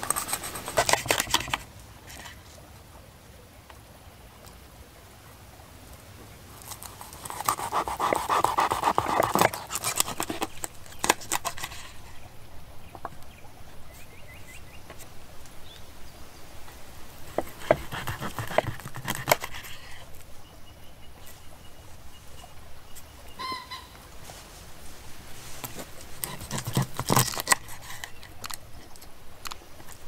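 A kitchen knife scraping scales off a whole raw fish on a wooden board, then cutting through it into pieces, in several separate bouts of rasping scrapes and cuts.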